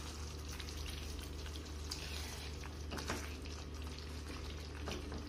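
Thick paneer gravy simmering in a nonstick kadai with a faint sizzle and crackle, stirred with a spatula that scrapes and ticks against the pan a few times, over a steady low hum.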